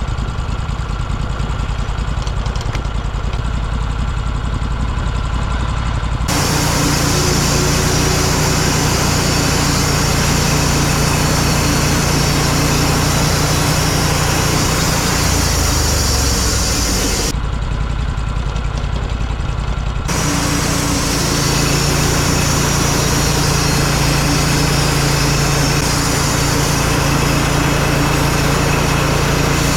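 Portable sawmill's small gasoline engine running steadily. A louder hiss joins it for two long stretches, one starting about six seconds in and one about twenty seconds in.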